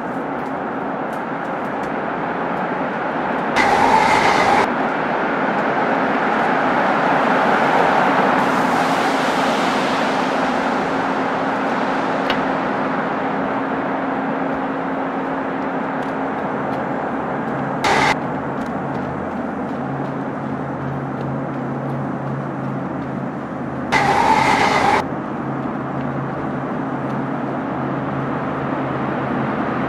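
Steady running noise of a moving vehicle, a constant rumble with a low hum whose pitch drops partway through. A short, louder tone of about a second sounds about four seconds in and again near twenty-four seconds, with a brief blip around eighteen seconds.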